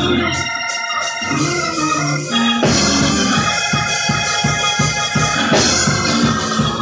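Electric organ playing held chords over a bass line whose note changes every second or so, with a light rhythmic pulse in the low notes in the middle.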